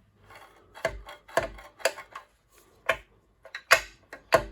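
Sharp mechanical clicks and knocks, about six of them, unevenly spaced and louder toward the end, as a 3.5 hp Honda small engine is turned over by hand and keeps catching. The owner suspects something is jamming up the flywheel.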